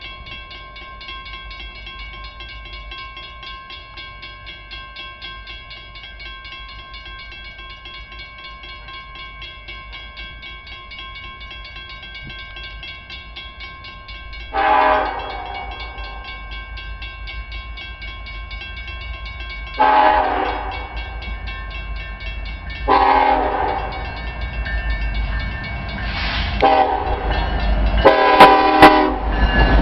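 A grade-crossing bell rings steadily, then an approaching diesel freight locomotive sounds its horn four times, the last blast drawn out: the long-long-short-long warning for a road crossing. The low rumble of the oncoming locomotive grows louder near the end.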